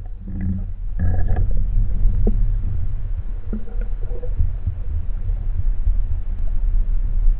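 Steady low underwater rumble picked up by a camera mounted on a speargun, with a few short knocks, most of them in the first second and a half.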